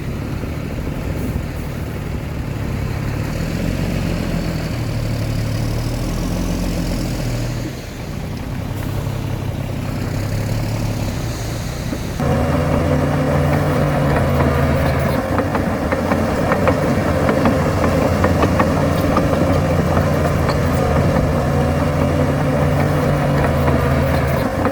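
Heavy earthmoving machine's diesel engine running under varying load, its pitch rising and falling. About halfway through it gets suddenly louder, with a rattling clatter of many small knocks over the engine.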